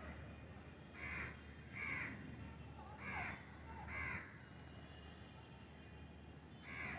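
Crow cawing: two pairs of harsh caws about a second apart, then a single caw near the end, over a faint steady background hum.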